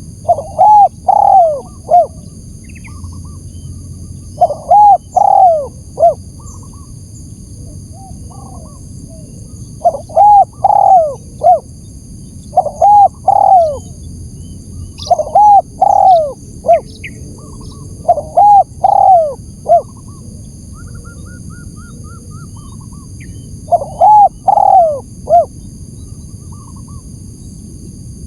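Spotted dove cooing: phrases of three or four arched coo notes, repeated every few seconds. It is a lure call meant to draw in and agitate wild doves.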